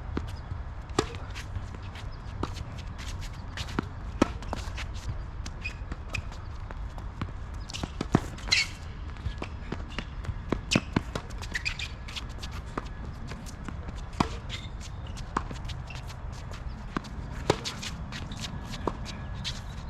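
Tennis rally: sharp racquet strikes and ball bounces on the court about every one to one and a half seconds, with players' footsteps shuffling between shots over a steady low outdoor rumble.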